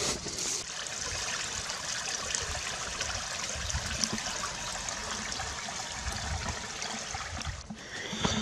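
Small mountain spring trickling and splashing over rocks into a pool: a steady rush of water. It cuts off shortly before the end, and footsteps on a stony path follow.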